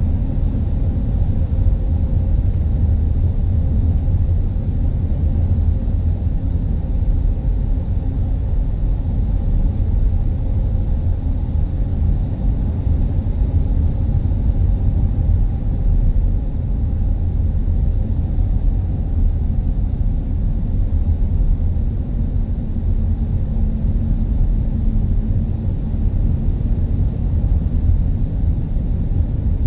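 Steady low rumble of road vehicles, with a faint hum over it.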